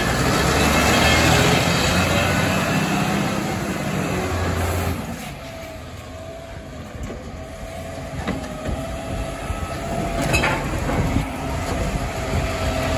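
Side-loading garbage truck working: diesel engine revved with the hydraulics running while the automated lift arm cycles a bin, loud for about the first five seconds. It then drops to a quieter running with a steady whine and a few sharp clanks as the truck moves to the next bins.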